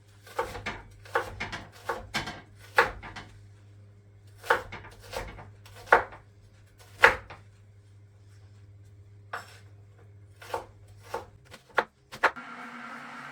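Kitchen knife chopping on a cutting board: a dozen or so sharp, unevenly spaced strokes, then a steady hum that starts near the end.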